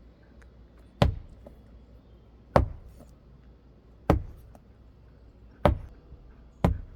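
Five sharp knocks, about a second and a half apart.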